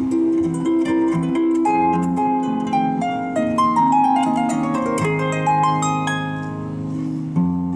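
Solo harp playing a light waltz: plucked melody notes ringing over low bass notes, with a quick run of notes in the middle.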